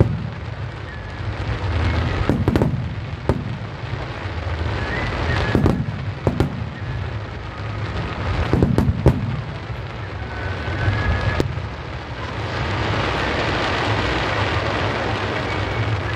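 Fireworks going off: booming aerial shell bursts every couple of seconds, each with a low rumble after it. Near the end comes a long stretch of dense, continuous crackling.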